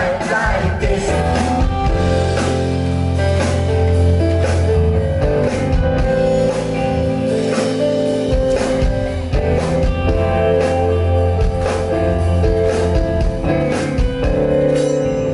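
Live band playing an instrumental passage of a pop-rock song: guitars over steady bass, with a drum kit keeping a regular beat.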